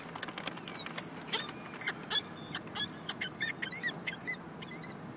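A flock of birds calling: many short, high calls, several a second, scattered and overlapping.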